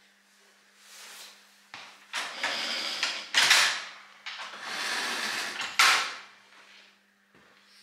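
Levers of a mechanical signal-box lever frame being worked by hand to release the set route. The sound is a series of rattling, sliding mechanical movements with two sharp clacks, one about three and a half seconds in and one near six seconds.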